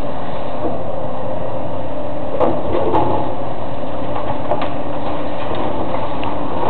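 Heavy demolition machinery's engine running steadily, with a few sharp knocks about two and a half, three and four and a half seconds in.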